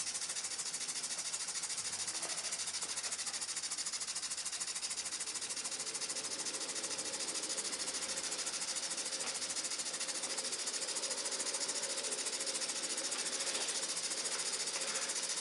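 Small model steam plant running steadily: a Muncaster table engine turning over fast on steam from a 3-inch gas-fired fire-tube boiler, heard as an even hiss of steam and gas burner. The gas has just been turned up, and the engine is picking up a little speed.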